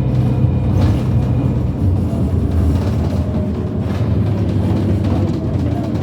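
Irisbus Citelis CNG city bus running, a steady low engine drone with a few light knocks and rattles.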